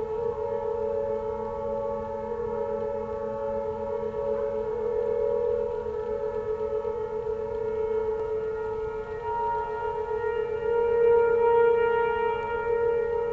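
Several outdoor tornado warning sirens at different distances, among them Whelen Vortex R4s, a Federal Signal 508, a Sentry and a Fedelcode, sounding a steady alert tone together during a routine test. Their overlapping pitches swell and fade in loudness, peaking about ten to twelve seconds in.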